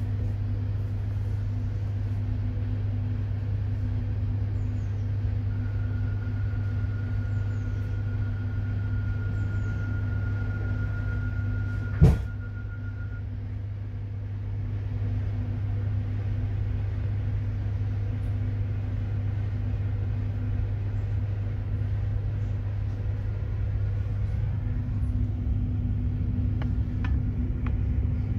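Cabin noise of a Bombardier Régio2N electric multiple unit under way: a steady low rumble and hum. A steady high tone sounds for several seconds in the first half, and a single sharp knock about halfway through is the loudest moment.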